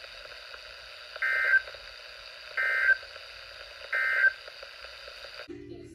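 Three short SAME digital data bursts, the end-of-message code that closes a NOAA Weather Radio alert, about a second and a half apart, played through a Midland weather alert radio's speaker over steady radio hiss. The hiss cuts off suddenly near the end.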